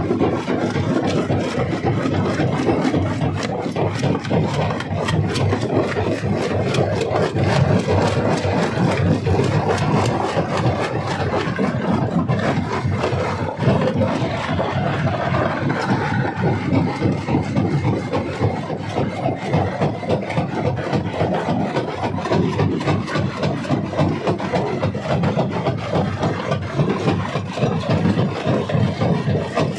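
Stone crusher running and crushing rock: a steady heavy machine rumble with a dense, continuous clatter of stone cracking and grinding.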